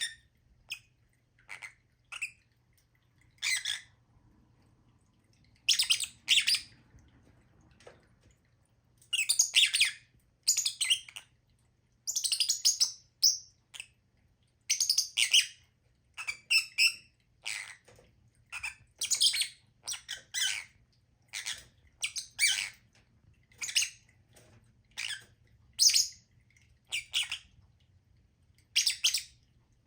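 Lovebirds giving sharp, high-pitched chirps and squawks in short bursts, one or two calls a second, with a lull of a few seconds early on.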